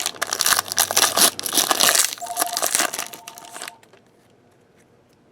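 Foil trading-card pack wrappers being crinkled and crumpled by hand, a loud run of crackling that stops about three and a half seconds in.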